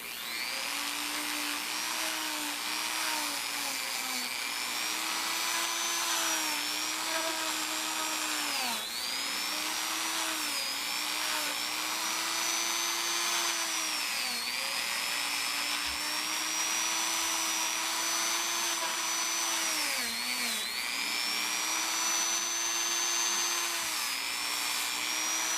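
Dremel rotary tool running at high speed with a steady whine while grinding the pitted inside of a steel ratchet head. Its pitch sags briefly several times as the bit is pressed into the metal, then recovers.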